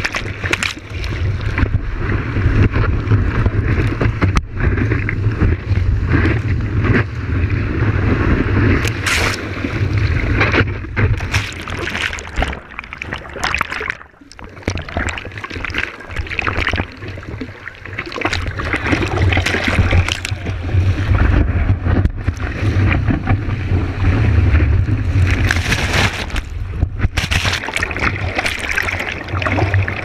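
Whitewater rushing and splashing over a surfboard-mounted camera as a surfer paddles prone through broken waves, with a heavy low rumble of water and wind buffeting the microphone and many sharp splashes.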